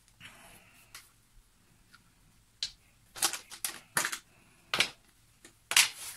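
Objects being handled close by: a short hiss near the start, then a string of sharp clicks and short rustles, the loudest near the end.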